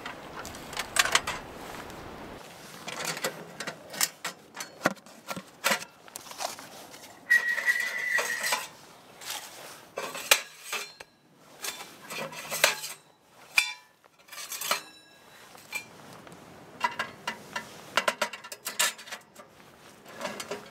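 Metal tent stove being unpacked: its parts clink and clatter as the nested stovepipe sections are pulled out of the firebox and the door is handled. The knocks are irregular, with a ringing metal scrape lasting about a second about seven seconds in.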